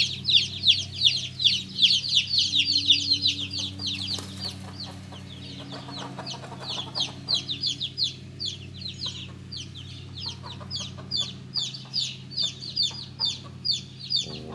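A brood of ISA Brown and Ameraucana chicks peeping continuously: many short, high-pitched, falling peeps overlapping several times a second, loudest in the first few seconds and softer after that.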